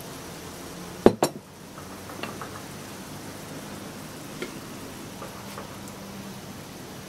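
Kitchenware being handled: a sharp double knock about a second in, then a few lighter clinks and taps, over a steady low hiss.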